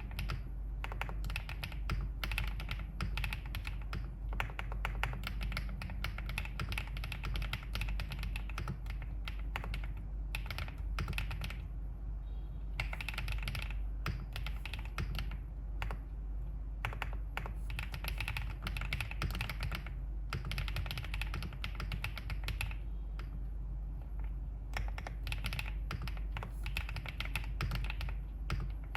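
Continuous typing on a Wave75 aluminium-cased mechanical keyboard with green bamboo (青竹轴) switches: rapid key clacks in steady runs with a few brief pauses. A steady low hum lies underneath.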